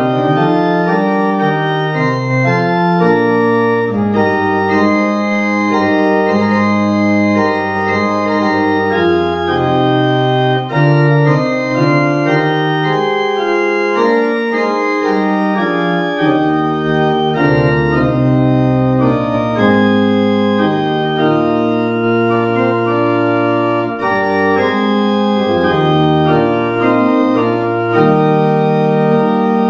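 Pipe organ playing a slow piece in chords, with held notes that change about once a second and deep pedal bass notes underneath.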